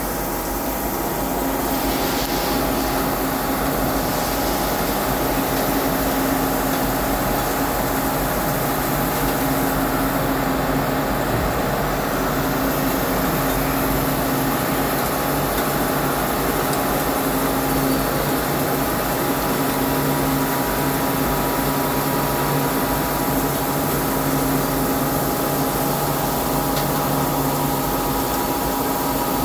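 CNC lathe running steadily while turning a cone, a constant machine whine made of several steady hum tones over a hiss.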